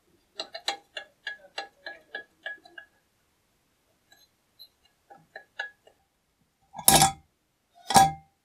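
Loose, rusty riveted handle parts of an old cast-iron charcoal iron clicking and clinking as they are wiggled, about three to four clicks a second, then a few scattered clicks; the rattle comes from the worn, loose joints. Near the end come two heavy knocks about a second apart.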